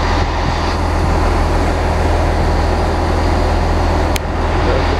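Class 166 diesel multiple unit with its engines running: a steady low rumble and hum. A single sharp click comes about four seconds in.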